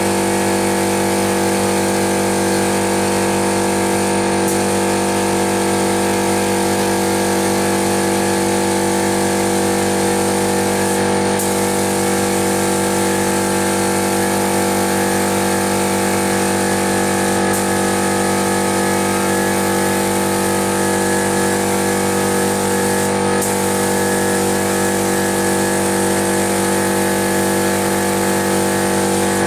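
Compressed-air paint spray gun hissing as it lays on a coat of 2K paint, over a steady machine hum. The hiss stops briefly four times, about six seconds apart, between passes.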